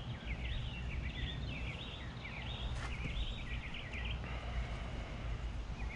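Birds chirping rapidly and repeatedly, the chirps turning into a steadier run of even, quick notes after about four seconds, over a low steady outdoor rumble.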